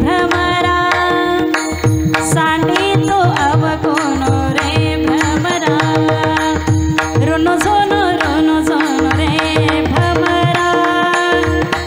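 A woman sings a devotional kirtan melody with bending, ornamented notes over a steady drone. A pakhavaj keeps up quick, deep drum strokes beneath her.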